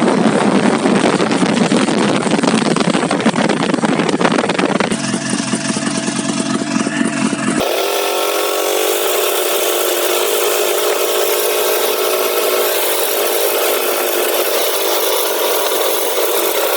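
Small engine of a snow vehicle running continuously. About seven and a half seconds in it cuts abruptly to a steadier, higher-pitched drone.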